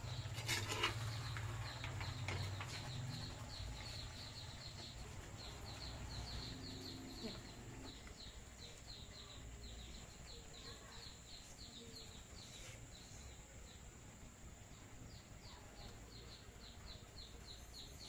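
Faint, quick chirps from a small bird, about three a second, repeating steadily, with a low hum under the first few seconds.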